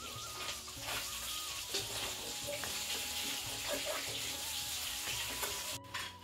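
Soft background music with a simple melody over a steady hiss with small crackles; the sound drops out abruptly near the end.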